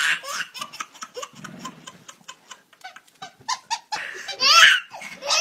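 A baby belly-laughing in quick short bursts, with a louder peal of laughter about four and a half seconds in and again near the end.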